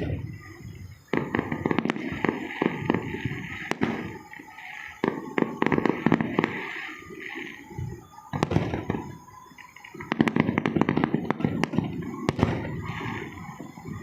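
Dense, rapid crackling and popping that comes in loud spells of a few seconds, easing off twice.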